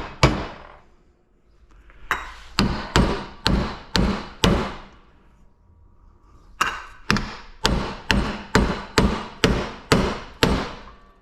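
Hammer blows on a metal air-filter housing to knock wire and shredded material loose, each strike ringing briefly. There are about two blows a second: a run of about six, a pause of about two seconds, then a run of about nine.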